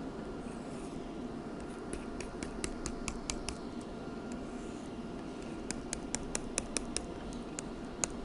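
Stylus tapping and scratching on a drawing tablet while short hatch marks are drawn. It comes as two runs of quick clicks, several a second, about two seconds in and again about six seconds in, over a steady low room hiss.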